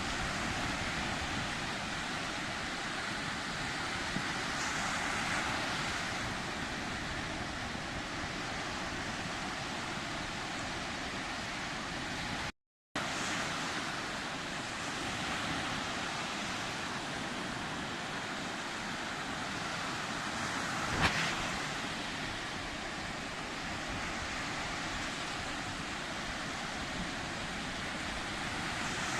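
Sea surf washing in a steady hiss that swells and ebbs every few seconds. The sound cuts out for a moment about halfway through, and a single sharp click comes about two-thirds of the way in.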